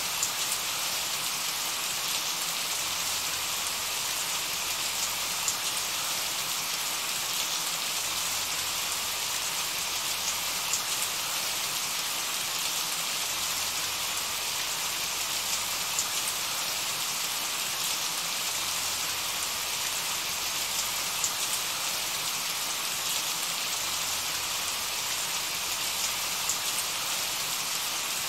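Steady rain falling, a dense, even hiss with scattered individual drops ticking through it.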